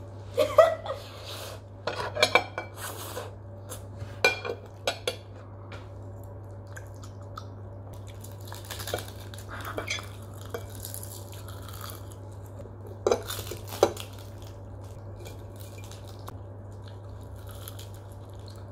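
Metal forks and spoons clinking and scraping against ceramic plates while noodles are eaten, in scattered short clinks, with a steady low hum underneath.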